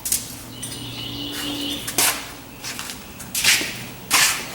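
A few sharp clacks and knocks spread over the few seconds, typical of drawers and tools being handled while someone hunts for a socket set, with a faint high chirp-like squeak about a second in.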